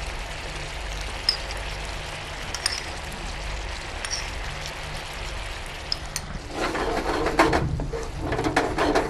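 Chicken in brown sauce simmering and sizzling in a frying pan while fresh cream is poured in, a steady hiss. Near the end it grows louder as a wooden spatula stirs the sauce in the pan.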